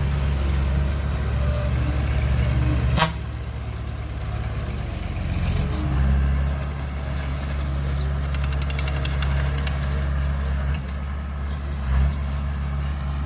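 Heavy diesel earthmoving machinery running with a steady low drone, with a sharp metallic clank about three seconds in, after which the engine note drops and then builds again. A short thump comes near the end.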